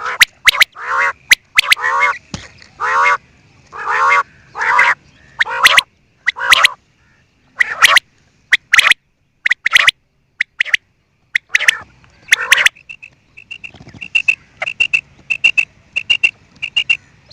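Quail calling over and over: harsh, buzzy calls about once a second with sharp clicks between them, then, in the last few seconds, a run of short high notes about twice a second.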